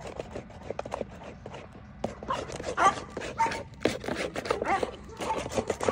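Anatolian shepherd dog whimpering in a few short high whines while it waits for its food, with irregular small clicks and scuffs around it.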